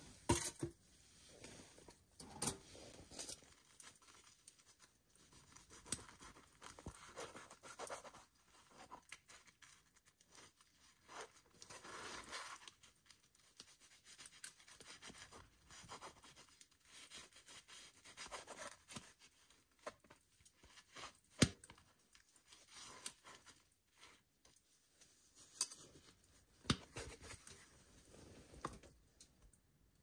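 A knife scraping and crunching through a crisp pan-fried flatbread on a plastic cutting board, in many short, uneven strokes with scattered clicks. One sharp knock about two-thirds of the way in is the loudest sound.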